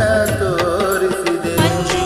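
Man singing a Kannada devotional song along with a karaoke backing track that has a steady percussion beat.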